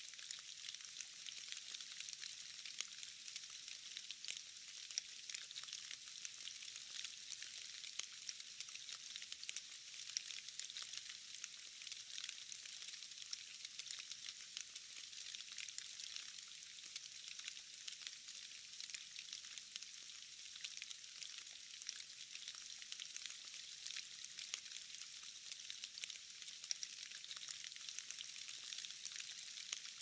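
Rain falling into a puddle: a steady, thin hiss of countless small drops striking water, dense with fine ticks.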